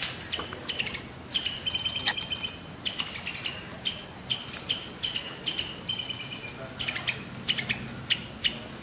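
Small birds chirping busily, a quick run of short high chirps and clicks that goes on throughout.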